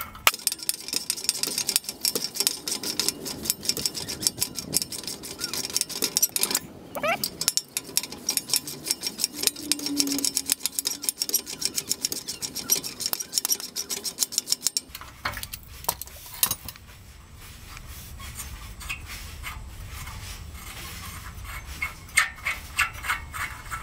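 Socket ratchet clicking rapidly as an already loose exhaust nut on the catalytic converter's tail-pipe flange is backed off. The clicking stops about fifteen seconds in, leaving quieter, scattered light metallic ticks.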